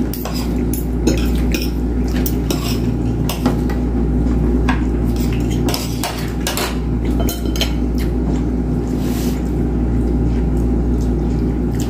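Spoons and forks clinking and scraping on plates as several people eat: a string of short, irregular clicks over a steady low hum.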